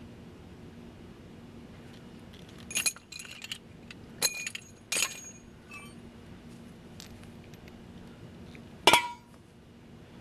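Metal clinking and jingling: a few sharp clinks with a short bright ring, in a cluster around three to five seconds in and one loudest clink near the end, over a faint steady low hum.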